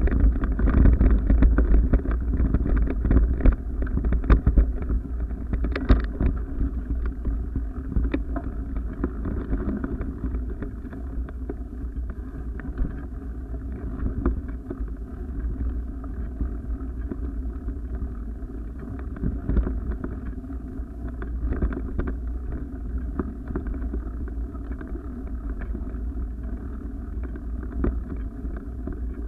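Wind buffeting a moving camera's microphone: a steady low rumble with irregular knocks and rattles as the camera jolts over rough ground, louder in the first few seconds.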